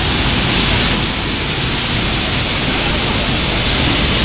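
Steady, loud, hiss-like noise of running food-processing machinery on a puffed corn snack extrusion line.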